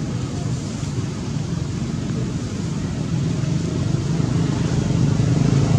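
A motor vehicle engine running with a steady low hum, growing louder over the last few seconds as it comes closer.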